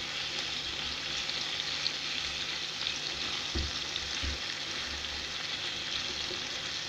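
Floured chicken breast, cherry tomatoes and black olives sizzling in olive oil in a non-stick frying pan: a steady crackling hiss. A silicone spatula stirs through the pan, with a couple of soft low knocks about midway.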